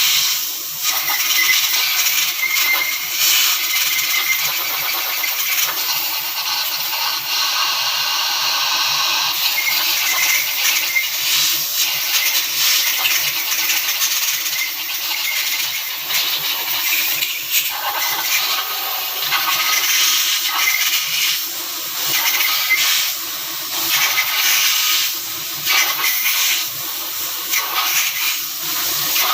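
A loud, steady hiss with a faint high tone and some rattling, like air or spray under pressure.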